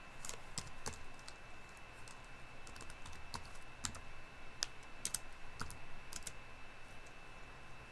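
Computer keyboard keys tapped in an irregular series of light clicks as a password is typed. A faint steady high-pitched tone sits underneath.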